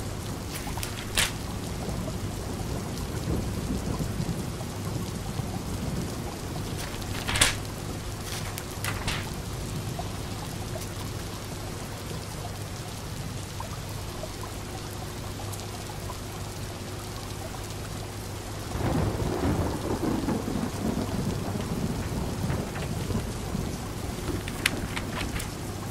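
Steady rain with a low rumble of thunder swelling for a few seconds about nineteen seconds in. Underneath runs a low steady hum, the fish tank's pump, and there are a few sharp ticks.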